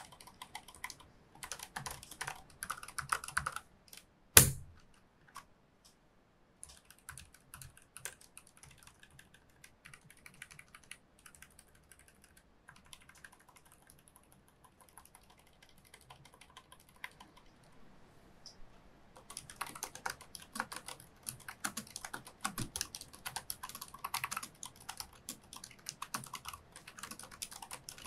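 Typing on a Razer DeathStalker V2 Pro low-profile keyboard with red linear switches: rapid key presses, with a single loud thump about four seconds in. The typing thins to sparser, quieter presses for a stretch in the middle, then comes back fast and denser for the last third.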